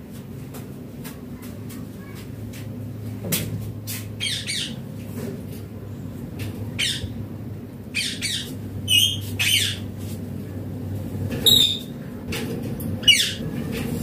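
An Indian ringneck parakeet (rose-ringed parakeet) giving short, shrill squawks, about eight of them from a few seconds in, most falling sharply in pitch.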